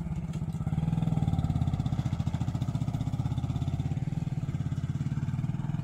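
Motorcycle engine running as the bike rides away: a steady low engine note with a fast even pulse, fading slightly as it goes.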